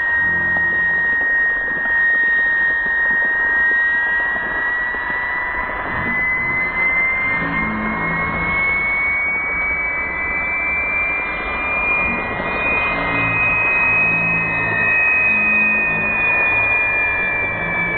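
Four small turbine jet engines of a giant-scale RC Avro Vulcan model whining as it taxis on grass, over a steady rushing noise. The high whine slowly rises in pitch for most of the time, then drops slightly near the end.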